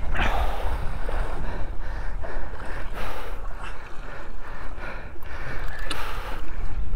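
Wind buffeting the microphone over water sloshing and splashing along a boat's hull, with a louder splash right at the start.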